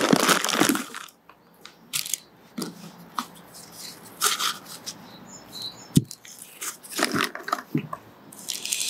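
Plastic bag and paper wrapping crinkling and rustling as a new water pump is unwrapped by hand, loudest in the first second and then in short scattered crackles, with one sharp knock partway through as the metal pump is handled or set down.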